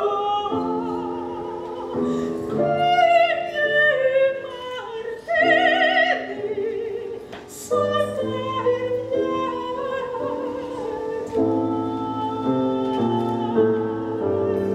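Female opera singer singing with wide vibrato over instrumental accompaniment.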